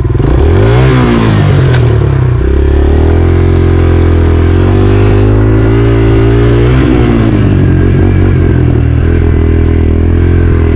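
Dirt bike engine under way. It revs up in the first second, holds steady higher revs for several seconds, then drops back about seven seconds in and runs on at lower revs.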